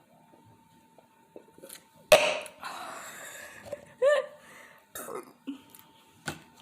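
A person coughing: one loud, sudden cough about two seconds in, followed by a couple of short throat sounds.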